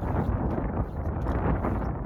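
Wind buffeting the microphone in a steady low rumble, with the faint footsteps of someone walking.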